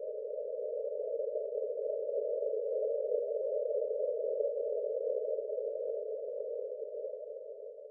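A breathing-pace cue made of a narrow band of hiss, marking one long, slow breath. It swells up over about three seconds, holds, and fades near the end. It then gives way to a lower-pitched hiss for the next breath.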